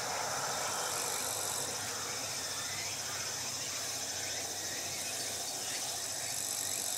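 Steady trilling of insects in the trackside grass, with a higher buzzing tone that comes in about a second in and again near the end.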